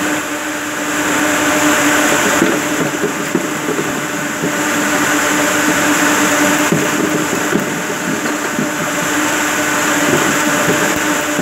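Ring spinning frames in a spinning mill running with a steady, loud machine din and a constant hum. Occasional light knocks come as full yarn cops are pulled off the spindles and tossed into a plastic crate.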